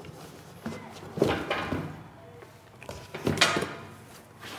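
Unboxing handling noises: a few short scrapes and rustles of cardboard and a coiled power cable as a Rubi Triller tile vibrator is pulled from its box, the two strongest about a second in and again near the end.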